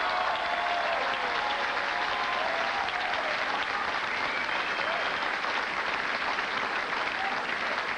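Large crowd applauding steadily, with a few scattered voices calling out over the clapping.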